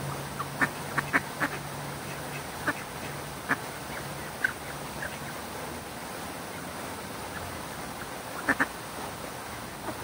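Ducks quacking in short calls: a quick run in the first second and a half, a few scattered ones, and a double quack near the end. Under them runs the steady rush of a fountain's water.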